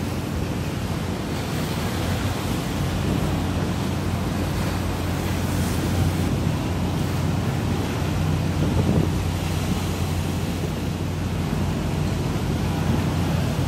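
Wind buffeting the microphone over the wash of choppy open sea, with a steady low drone of ship engines underneath.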